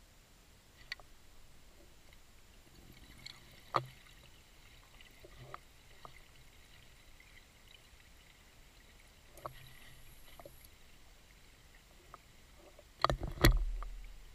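Scuba diver breathing underwater through a regulator: faint breaths about every five to six seconds with a few small clicks, then near the end a louder burst of exhaled bubbles with a low rush that fades over about a second.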